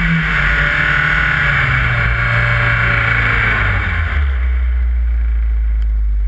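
BMW 318is rally car's engine heard from on board, falling in pitch as the car comes off the power, then settling to a low steady idle about four seconds in as the car stops. The road and wind rush fades at the same time.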